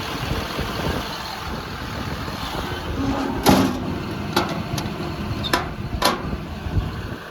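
John Deere 210G LC excavator's diesel engine idling steadily. A loud knock about three and a half seconds in is followed by four sharper clicks over the next two seconds or so.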